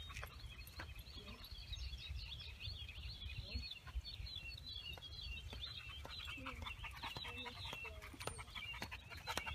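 Birds chattering: many quick, overlapping chirps from small birds, over a low steady rumble.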